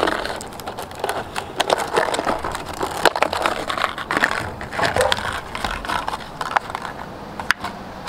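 Stiff clear plastic blister pack being handled and pulled apart, crinkling and crackling with many small sharp clicks.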